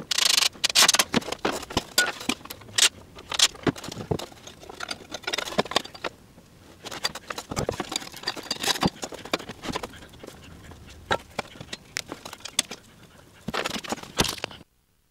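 Irregular knocking, clicking and clattering of wooden boards and steel brackets being handled and fitted together while a workbench frame is assembled. It stops abruptly near the end.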